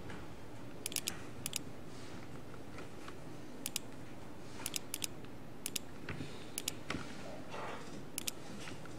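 Computer mouse clicking, mostly in quick pairs every second or so, over a faint steady room hiss.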